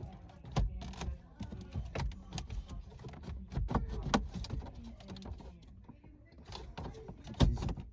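Irregular clicks and knocks of hands and tools working on a car's dashboard to remove the radio, with the loudest knocks bunched near the end.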